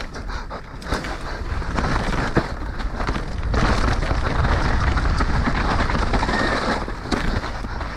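Orbea Rallon enduro mountain bike descending a dry, rocky dirt trail at speed: tyres rolling over dirt and stones with the chain and frame rattling over the bumps, and wind buffeting the camera microphone. It gets louder from about three and a half seconds in.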